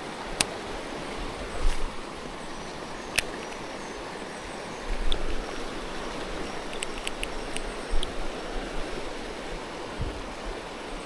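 Shallow creek water running steadily over rocks, with a few sharp clicks scattered through it and several low bumps about two, five and eight seconds in.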